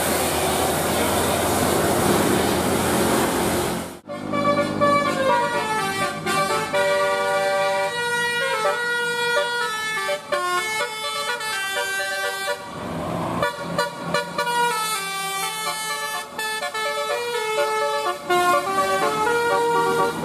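Bus basuri telolet horn playing a tune in quick stepped notes, loud and sustained. It follows a few seconds of noisy traffic and engine sound that cuts off suddenly about four seconds in.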